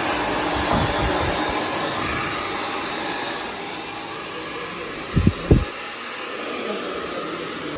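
Handheld hair dryer blowing steadily while blow-drying hair, with two low thumps in quick succession about five seconds in.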